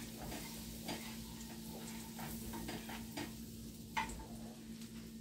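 Butter melting and sizzling softly in a hot tri-ply sauté pan over low heat, stirred with a wooden spoon that scrapes and taps lightly against the pan, the sharpest tap about four seconds in.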